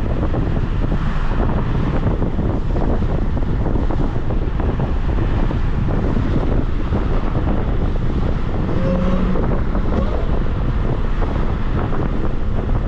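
Steady road and wind noise inside a Dodge Charger Hellcat cruising on a wet road, tyres hissing through the water, with the engine kept low under it.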